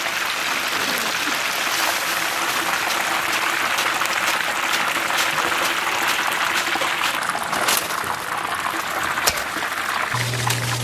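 Hot oil sizzling steadily as a batch of battered chicken gizzards deep-fries, with a few sharp metal clinks as a wire skimmer lifts the batch out; the sizzle thins somewhat toward the end.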